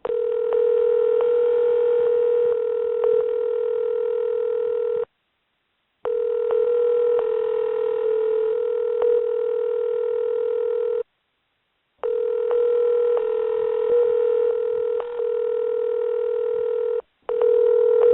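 A steady telephone tone over a phone line, playing in stretches of about five seconds with roughly one-second breaks, plus fainter higher tones and light clicks.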